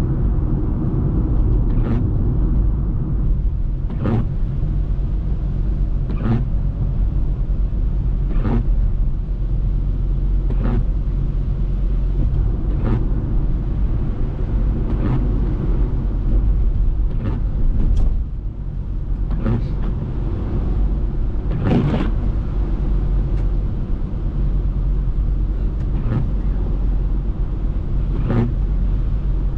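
Steady low rumble of a car driving on a wet road, heard from inside the cabin, with the windshield wipers sweeping the glass about every two seconds.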